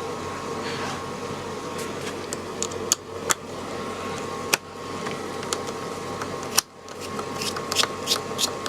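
Scattered clicks and small metal taps of a screwdriver unscrewing the USB port board from a metal 5.25-inch drive-bay adapter, over a steady hum.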